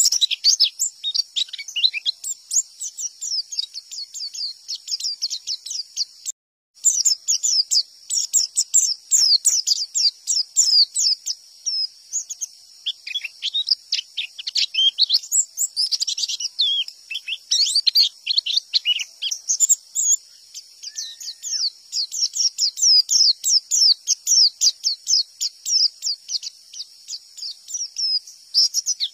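White-eye (pleci) singing a fast, unbroken run of high chirping and twittering notes, the rapid 'tembakan' song style that pleci keepers prize. The song stops dead for a moment about six seconds in, then carries on.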